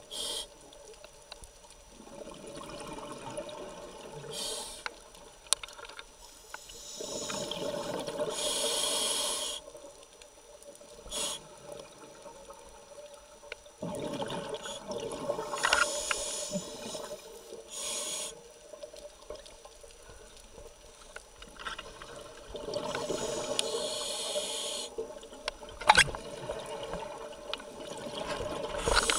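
A scuba diver breathing through a regulator underwater: hissing inhalations alternating with longer bubbling exhalations, a breath roughly every seven or eight seconds. There are a few sharp clicks near the end.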